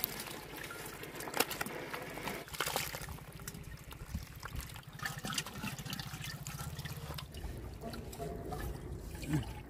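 Water pouring steadily from two plastic pipes set through a mud dam, trickling and splashing onto wet sand, with a few sharp clicks.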